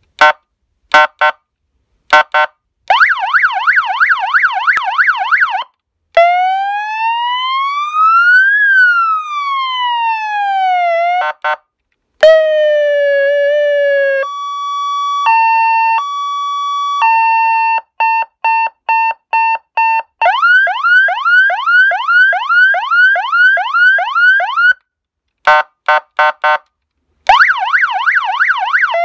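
A 100-watt 12-volt electronic vehicle siren sounding through its horn loudspeaker as it steps through its tones. First come short quack-horn blips, then a fast warble and a slow wail that rises and falls. After that come a low steady tone, a two-note hi-lo, rapid beeps and repeated quick rising whoops, before the warble returns near the end.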